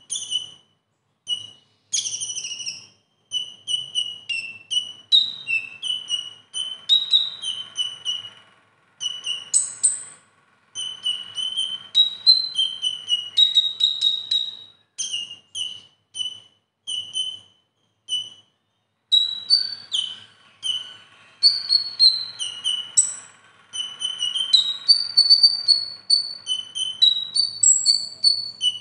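Male Van Hasselt's sunbird (kolibri ninja) singing a long, lively run of short, sharp, high notes, mostly repeated two or three a second, with some higher gliding notes and a few brief breaks. The song carries mimicked calls of other birds.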